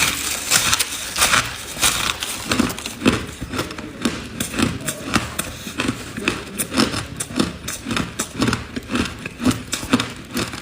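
Ice being chewed close to the microphone: a steady run of loud, crackling crunches, about two a second, as hard ice cubes break between the teeth.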